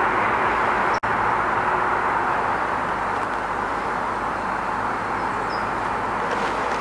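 Steady outdoor background rush, an even noise without distinct events, with a momentary dropout about a second in.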